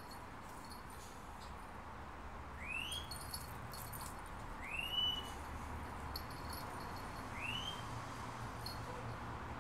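Pug puppy giving three short rising squeals, a couple of seconds apart, while play-wrestling with a cocker spaniel.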